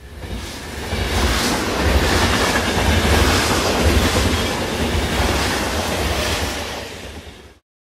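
Rumble and rattle of a moving subway train heard from inside the car, a steady noisy din with a heavy low rumble, fading in at the start and out near the end.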